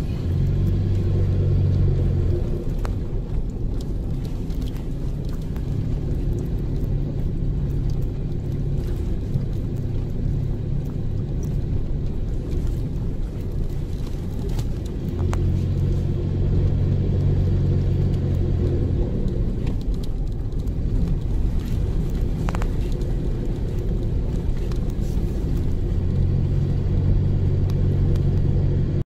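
Four-wheel-drive vehicle driving on a dirt track, heard from inside the cabin: a steady low rumble of engine and tyres, with a louder low drone in stretches at the start, in the middle and near the end, and a few faint clicks.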